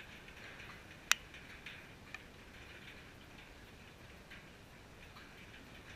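Faint, irregular high ticking and chirping, with one sharp, loud click about a second in and a softer click about a second later.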